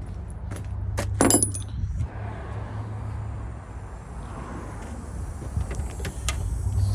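A few sharp metallic clicks and a short metal jingle about a second in, over a steady low hum.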